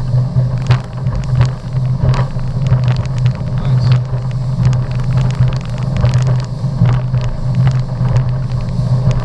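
Motorboat engine running at speed with a steady low drone, with many short knocks from the hull on the water throughout.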